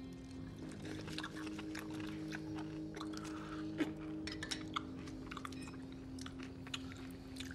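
Quiet eating sounds: a metal spoon clinking and scraping in a small china bowl, with chewing, as scattered sharp taps over a faint steady hum. A few of the clinks, around the middle, stand out louder.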